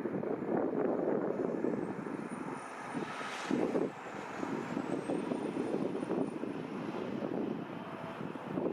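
Boeing 757-200 freighter's Rolls-Royce RB211 jet engines running, a steady rumble with a faint high whine that rises and falls in pitch, and a brief louder rush about three and a half seconds in.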